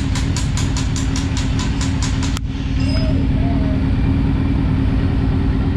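Motorcycle engine idling steadily, with a fast regular ticking of about six or seven a second over it. The ticking stops abruptly about two and a half seconds in, where the sound steps slightly louder.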